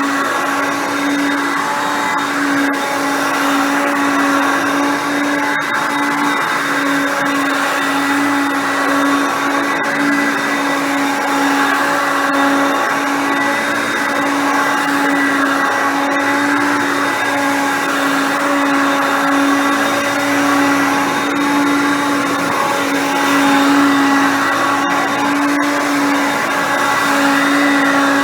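Hoover Concept Two upright vacuum cleaner with a 5.6 amp motor, running at a steady, even pitch while vacuuming.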